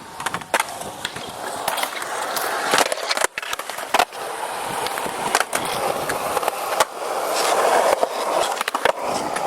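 Skateboard wheels rolling over the park surface, a steady grinding rumble that grows louder in the second half. Sharp clacks and knocks of the board and trucks striking the ground cut through it again and again.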